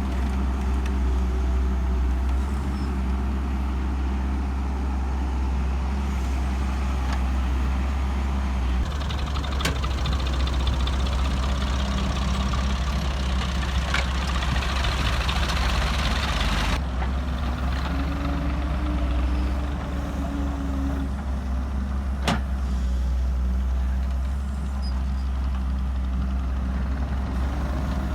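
An excavator's diesel engine runs steadily with a deep rumble. Three sharp clanks are heard during the run, a hiss rises over the engine for several seconds in the middle, and a brief wavering whine follows.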